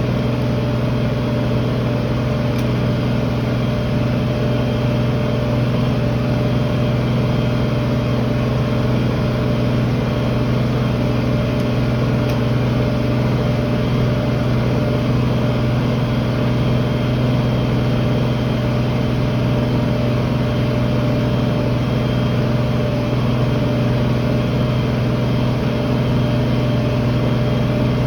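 Tractor engine running steadily with a constant droning hum while pulling a field cultivator.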